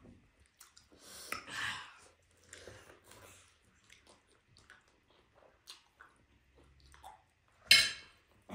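Close-up eating sounds of chewing and biting food, with scattered small clicks and one sharp, louder burst near the end.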